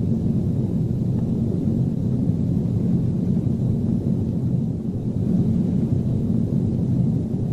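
Steady low drone of aircraft engines, a rumbling hum with a slight dip about five seconds in.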